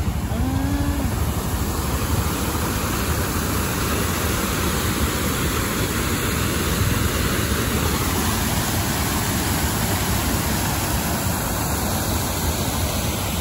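Steady rushing wind and road noise from a moving vehicle, even and unbroken.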